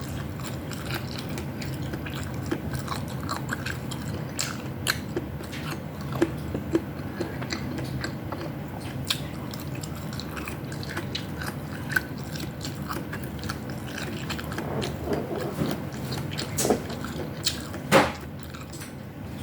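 Close-up eating sounds: chewing and biting, with scattered small clicks of utensils and food and a louder click near the end, over a steady low hum.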